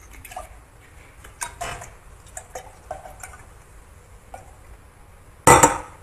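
Scattered light clinks of dishes and glassware, with one loud clatter about five and a half seconds in.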